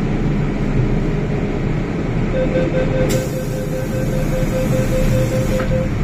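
Hong Kong MTR M-Train heard from inside the car as it pulls into a station, with a steady rumble of wheels and running gear. About two seconds in, a tone starts beeping about four times a second and runs almost to the end. From about three seconds in, a hiss rises over it and stops with a click shortly before the end.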